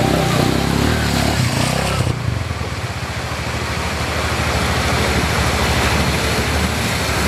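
Small single-cylinder 125cc trail motorcycle engines running as the bikes ride through a shallow river, with water splashing around the wheels.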